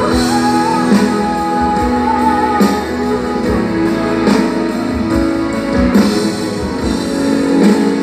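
Live pop band playing an instrumental passage with no vocals: a guitar melody over sustained chords, bass and drums, heard over a festival PA from within the crowd.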